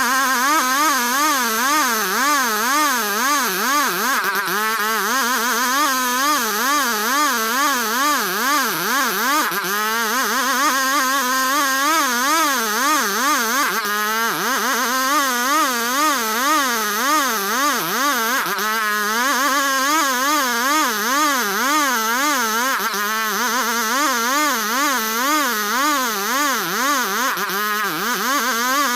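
Engine-driven sawmill run at full throttle, sawing ulin ironwood: a loud, pitched machine sound whose pitch wavers up and down about twice a second under the cutting load, sagging and recovering a few times.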